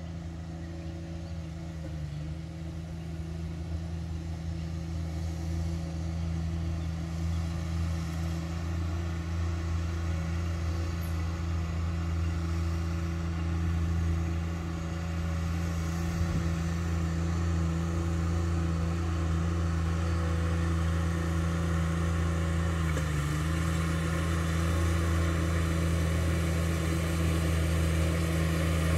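Ride-on mower engine running steadily at mowing speed, slowly growing louder as the mower comes down the hill, with two brief dips in engine speed.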